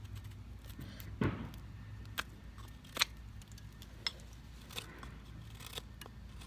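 Knife carving a wooden spoon blank by hand: irregular short cutting and scraping clicks as the blade takes shavings off the wood, the loudest a little over a second in.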